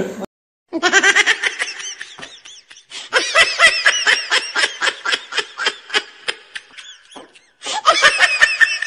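Laugh-track sound effect: a high-pitched, rapid 'ha-ha-ha' laugh in three bursts with short pauses between them.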